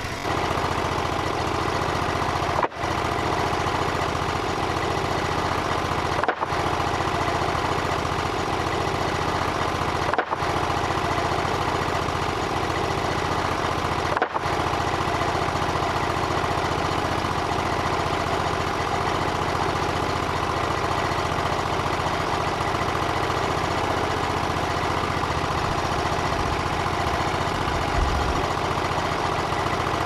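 The portable bandsaw mill's gasoline engine idling steadily while no cut is being made. The sound drops out briefly four times, around 3, 6, 10 and 14 seconds in.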